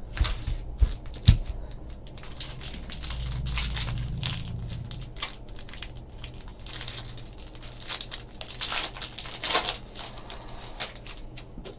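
Foil trading-card pack crinkled and torn open by hand, a run of sharp crackles with a louder rip about nine and a half seconds in. A few soft knocks in the first second and a half.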